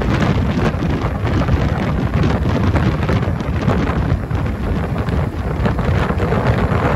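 Wind buffeting the microphone on a boat under way across choppy sea, a loud, gusty rumble.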